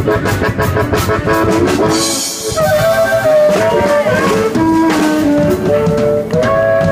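A live band of electric guitar, upright double bass and drum kit playing an instrumental passage with no singing. A melody line steps down and back up, and a long held chord begins near the end.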